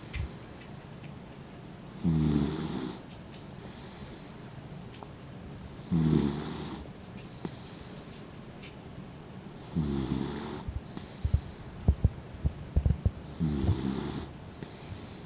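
An elderly dachshund snoring in its sleep: four pitched snores about four seconds apart, each followed by a short breathy sound. A quick run of sharp low knocks comes between the third and fourth snores.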